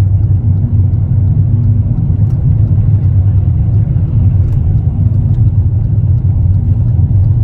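Steady low road and engine rumble heard inside the cabin of a moving vehicle at highway speed.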